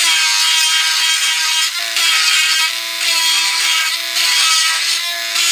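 Cordless rotary engraving tool running with a steady whine while its bit grinds into wood, the grinding coming in strokes of a second or so with short breaks between them.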